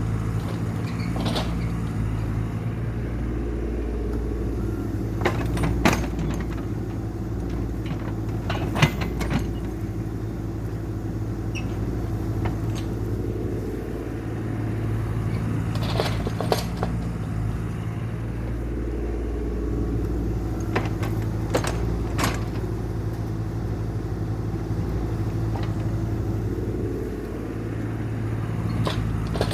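CAT excavator's diesel engine running while digging. Its sound swells and eases in cycles every several seconds, with sharp knocks now and then, a few of them close together.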